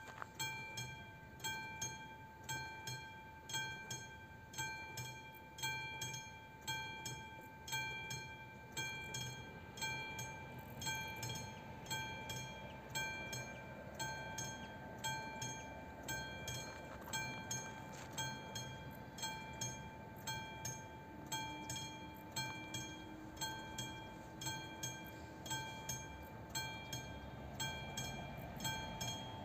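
Level-crossing warning bell ringing in a steady, even rhythm, a little more than one ringing strike a second, each strike dying away before the next: the crossing is active and warning of an approaching train.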